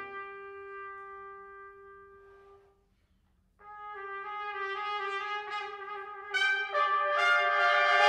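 Ensemble of C trumpets, B-flat trumpets and flugelhorns playing sustained chords. A held chord thins to a single fading note and breaks off about three seconds in. After a brief silence the players re-enter softly, more voices join one after another, and it builds to a loud full chord near the end.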